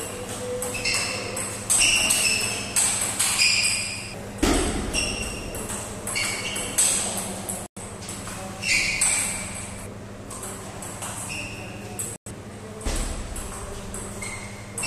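Table tennis rally: the ball clicking in quick succession off the paddles and the table, each hit with a brief high ring. There are two dull heavy thuds, about four seconds in and near the end.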